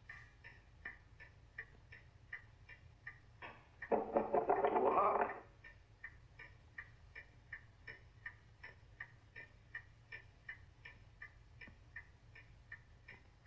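Clock ticking steadily, about three ticks a second. About four seconds in, a louder scraping or rustling sound lasts for over a second.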